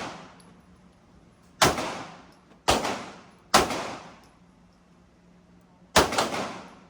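Four pistol shots from a Beretta APX, each trailing off in an echo. Three come in quick succession about a second apart, then a fourth follows after a pause of about two and a half seconds.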